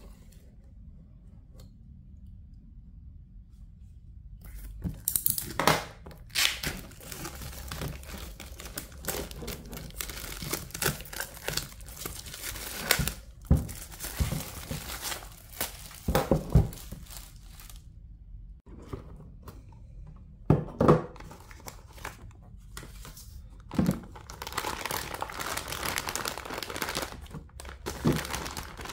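Clear plastic shrink-wrap crinkling and tearing as it is stripped off a jigsaw puzzle box, starting about four seconds in and coming in bursts with a few sharp snaps. Toward the end, a plastic bag full of puzzle pieces crinkles as it is handled.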